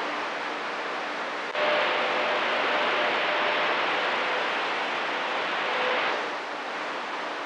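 CB radio static hiss. About one and a half seconds in, a station keys up without speaking and a louder rush of carrier noise with a faint steady tone holds for about four and a half seconds, then drops back to the background hiss.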